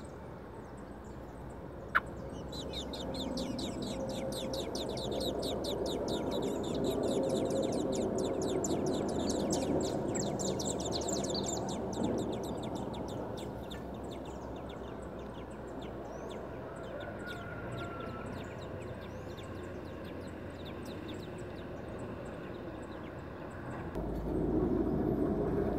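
Thrush (sabiá) nestlings begging: a fast, steady run of thin, high-pitched ticking calls that starts a few seconds in, builds, then fades away about halfway through once the parent has fed them.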